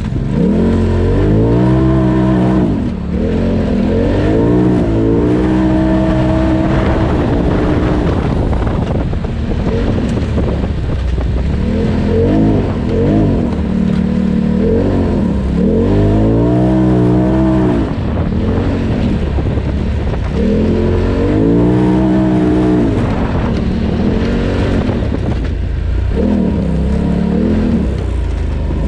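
Polaris RZR Turbo side-by-side's engine revving hard, its pitch climbing and dropping again and again as the throttle is worked, over a steady low rumble.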